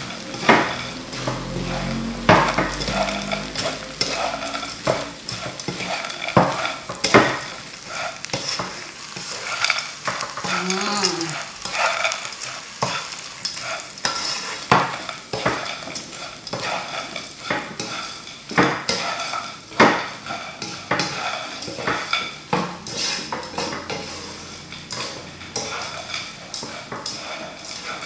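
Fried tempeh strips being stir-fried in a wok with a spatula, the sauce cooked down until no liquid is left. A continuous sizzle runs under irregular scrapes and knocks of the spatula against the pan as the tempeh is tossed.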